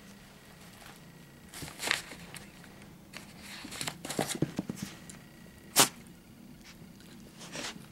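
Paper rustling and crinkling in irregular short bursts as a puppy paws and tugs at a paper instruction booklet, densest about halfway through, with one sharp crackle about six seconds in.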